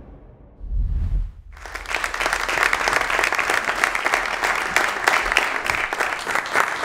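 Audience applauding, a dense steady clapping that starts about a second and a half in, after a brief low boom.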